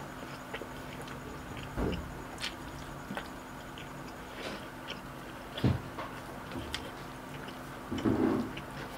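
Close-up eating sounds: a person chewing a mouthful of rice and ground pork, with wet mouth clicks and smacks. There are a few soft knocks, the loudest a little over halfway through, and a steady faint hum runs underneath.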